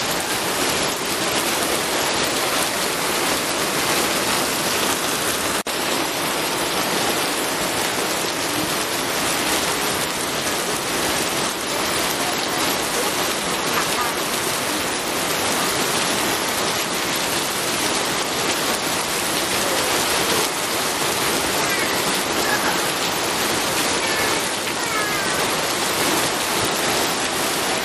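Steady rain, an even hiss of falling drops, with one brief click about five and a half seconds in.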